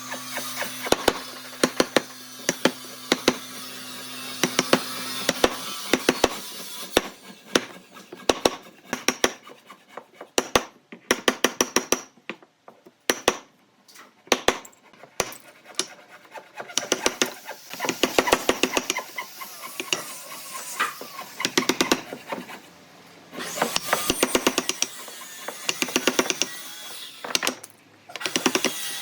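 Irregular sharp knocks and taps of hand tools striking wood, some in quick runs, with a steady hum that fades out about five seconds in.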